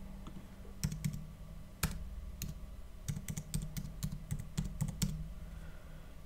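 Typing on a computer keyboard: irregular key clicks as an IP address is entered, over a steady low hum.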